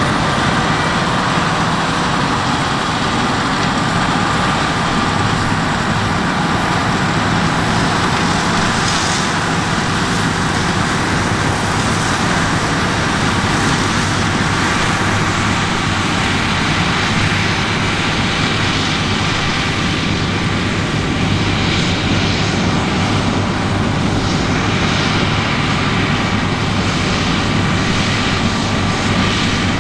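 Heavy harvest machinery running steadily: a continuous diesel engine drone with a faint high whine over it.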